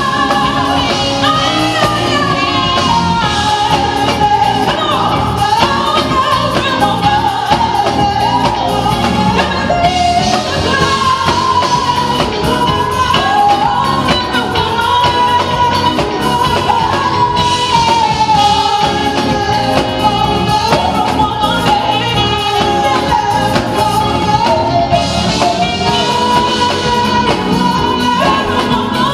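A woman singing lead with a live band of electric guitar and drums, in long held notes that slide up and down.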